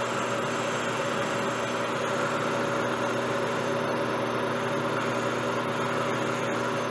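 Large Jet metal lathe running steadily, its motor and gear train giving a constant hum, while the tool takes a light taper cut on a spinning steel blank.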